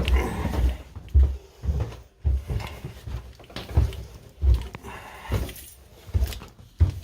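Footsteps walking at an even pace, a heavy low thud with each step, about two a second.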